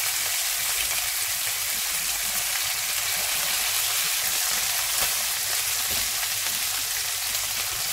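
Marinated chicken breast pieces frying in hot oil in a non-stick pan: a steady sizzling hiss.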